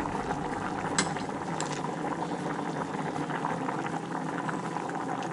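Pot of white beans with vegetables boiling steadily, a continuous bubbling crackle. Two light clicks about a second in, a metal spoon against the dishes.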